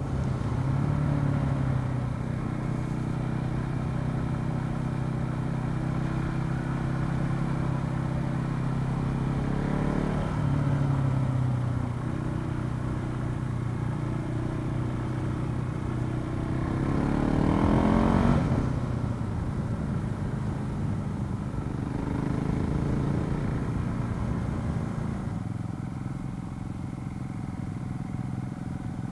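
KTM 690 SMC single-cylinder supermoto engine running under the rider, heard from the bike. The engine runs steadily at low revs for the first third, then about two thirds in it revs up sharply and drops back.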